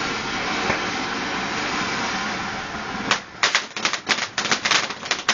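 A firework going off: a steady hiss for about three seconds, then a fast run of sharp cracks, roughly six a second, like a crackling barrage.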